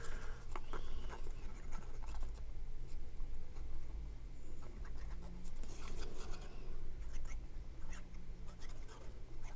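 Light scratching and rubbing on cardstock, with scattered soft clicks as the paper pieces are handled.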